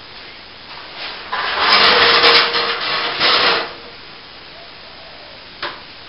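Rough scraping or rasping against a hard material for about two and a half seconds, then a single sharp knock near the end.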